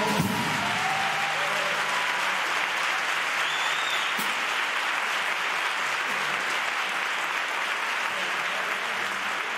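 A theatre audience applauding steadily as a carnival murga's song ends, with the choir's last sung note dying away in the first moments.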